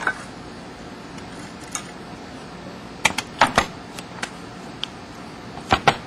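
Scattered small metallic clicks and taps as a hand wire stripper is picked up and handled: a few single clicks, with clusters about three seconds in and near the end.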